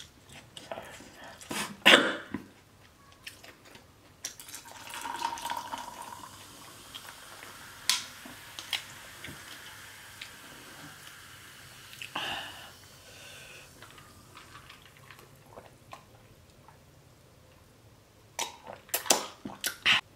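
Close-miked eating sounds: wet mouth clicks and chewing with scattered sharp clicks, a paper napkin rubbing at the lips, and one louder sudden noise about two seconds in.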